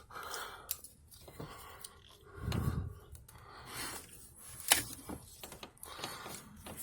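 Scattered light metal clicks and knocks from tools and parts being handled around an engine's intake manifold, with a duller thud about two and a half seconds in and one sharp click near five seconds.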